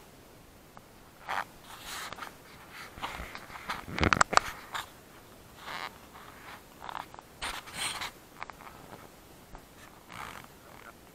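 Close scraping and rustling in short, irregular bursts, loudest in a cluster of sharp scrapes and clicks about four seconds in.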